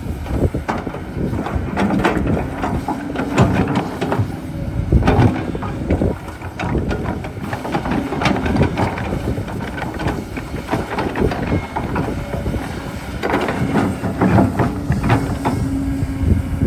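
Excavator at work digging dirt: a steady motor hum with many short knocks, clatter and scraping.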